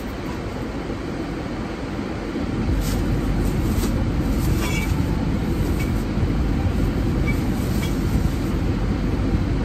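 Steady rushing of a car's air conditioning blowing in the cabin, growing louder about two and a half seconds in. A few light knocks and rustles come as things are handled in the back seat.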